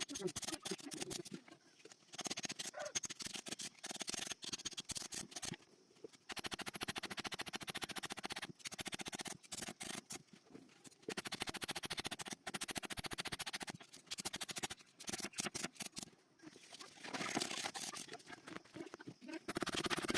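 Rapid, repeated metal-on-metal strokes from hand work on a sickle blade, coming in bursts of several seconds with short pauses between them.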